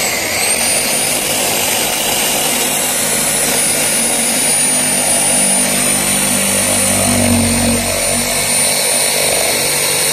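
DeWalt reciprocating saw cutting through a 4-inch PVC drain pipe, the blade running steadily with a high whine. The saw is cutting out a broken section of the pipe.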